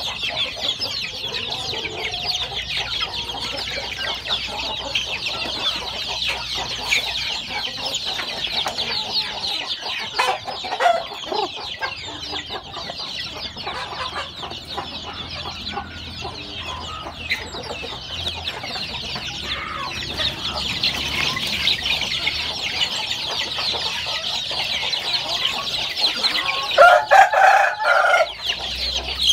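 A pen of young chickens peeping constantly in high-pitched chirps. About a second before the end comes one louder, lower chicken call.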